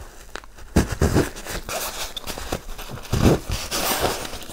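Rustling and crinkling of a bulky sleeping bag's fabric and its strapped carry sack as they are handled and the straps worked loose, with a few louder bumps about a second in and again after three seconds.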